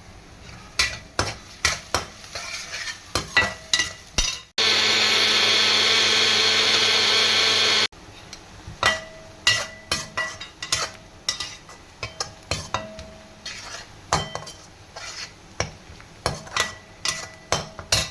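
A spoon knocks and clinks repeatedly against a metal bowl or pan while stirring or mixing, each strike ringing briefly. In the middle an electric motor runs loud and steady for about three seconds, starting and stopping abruptly.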